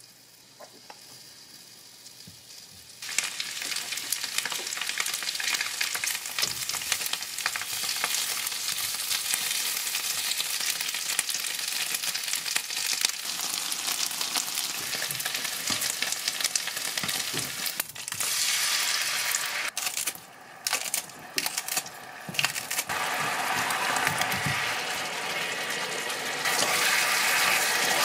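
Chicken wings sizzling in hot oil in a frying pan. The sizzle starts about three seconds in, drops out suddenly a few times past the middle, and is louder near the end.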